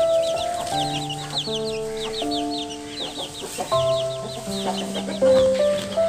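Domestic chicks peeping continuously, a quick run of high, falling peeps several times a second, over background music of held notes that change every second or so.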